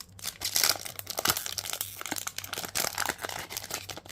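Foil booster pack wrapper crinkling as it is torn open and handled, a fast irregular crackle throughout.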